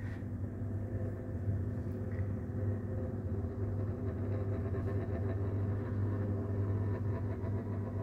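KDK KB30E 12-inch table fan running steadily on its lowest speed while oscillating: an even motor hum with air noise from the blades. The owner says its bearings chatter at times as it oscillates, a sign of worn bearings.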